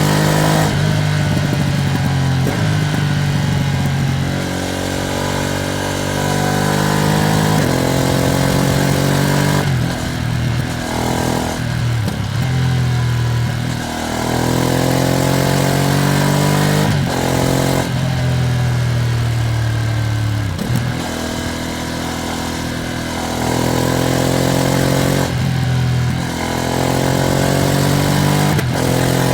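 Ducati Streetfighter V2S V-twin engine on a ride, pulling up through the gears: its pitch climbs and drops sharply at each shift, about ten times, with a few stretches where it eases off and winds down. The bike is being ridden gently while it is run in.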